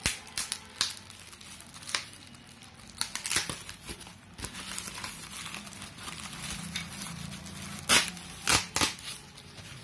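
Plastic packaging, a polythene bag and a foam protective sheet, crinkling and rustling in irregular bursts as it is pulled off a circuit board, with a few sharp crackles, the loudest near the end.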